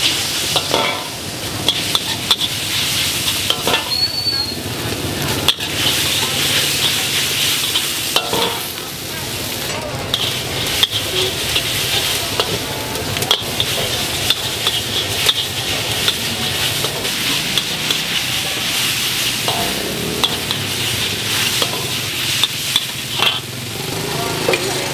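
Fried noodles sizzling in a wok over a charcoal fire, a steady frying hiss, with a spatula knocking and scraping against the wok many times as they are stirred and tossed.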